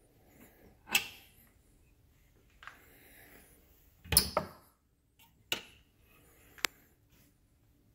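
Small wooden doors of a Victor XVI phonograph cabinet being opened and shut by hand: five wooden knocks and clicks, the loudest about four seconds in, with a sharp click near the end.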